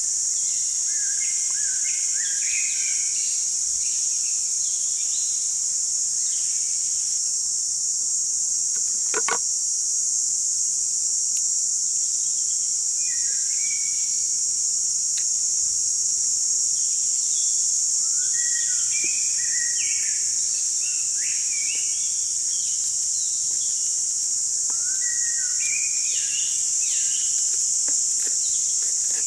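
Steady high-pitched insect drone, with birds chirping on and off over it.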